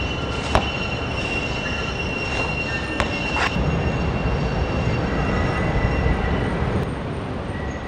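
A low rumble with a steady high-pitched squeal over it and a few sharp clicks, a sound effect opening the track before the music comes in.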